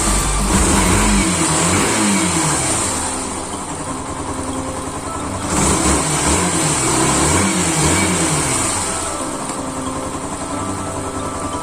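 Yamaha SZ150's single-cylinder four-stroke engine being revved up and let fall back, in two groups of rises and falls, between which it runs steadily.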